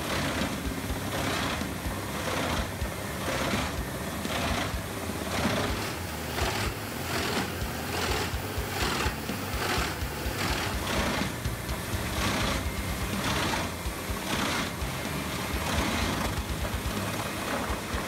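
Eschlböck Biber 80 ZK wood chipper chipping a log fed in by its crane, a loud dense grinding with a regular pulse about twice a second.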